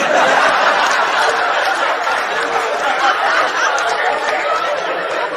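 A live comedy audience laughing loudly together at a punchline. The laughter breaks out all at once and tapers off slowly near the end.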